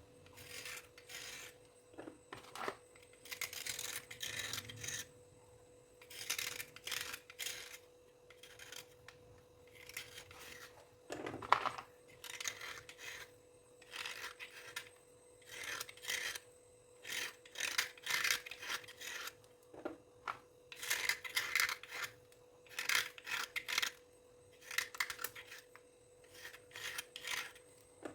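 Dry scrubbing and scraping against a surface: repeated rasping strokes, roughly one every second or two. One louder knock comes about eleven seconds in, and a faint steady hum sits underneath.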